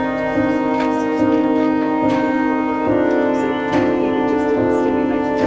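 Background music of held chords that shift every second or so.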